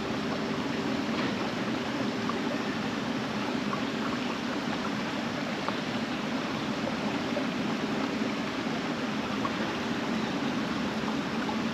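Creek water running, a steady, even rush.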